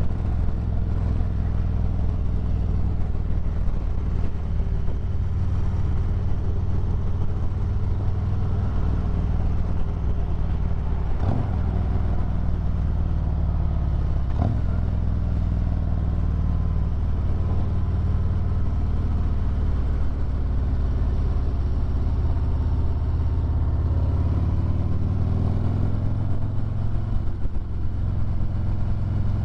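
Harley-Davidson Road Glide's V-twin engine running at road speed, its note stepping up and down several times as the throttle changes. Two short sharp clicks sound near the middle.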